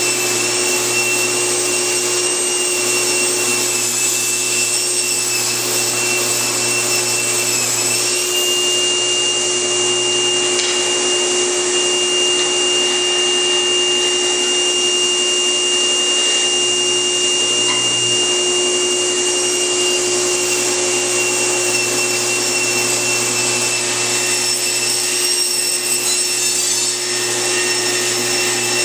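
Table saw with a Micro-Kerf40 thin-kerf blade running steadily with a constant whine while ripping thin strips off a mahogany board, a hard wood that is difficult to cut.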